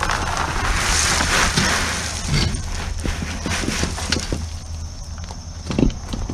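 Gravel being moved by hand: a rush of gravel sliding and crunching for about two seconds, then scattered clatters of stones and a sharper knock near the end.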